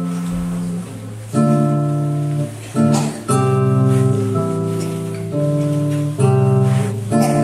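Solo classical guitar playing plucked chords and notes that are left to ring, with a new chord struck every second or two.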